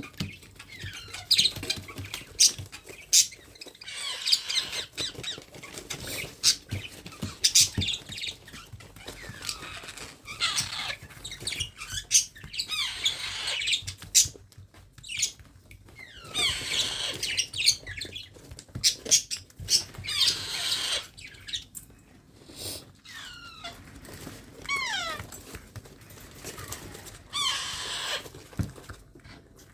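Baby parrot squawking again and again in harsh rasping bursts, some of them short falling calls, with sharp clicks in between: the food-begging calls of a hand-fed parrot chick.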